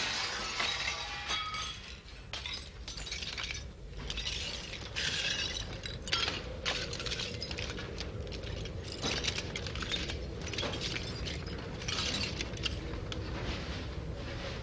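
Scattered clinks, clatters and rattles of glass and metal, the sound of burglars breaking into a shop and rummaging, with a faint steady hum coming in about six seconds in.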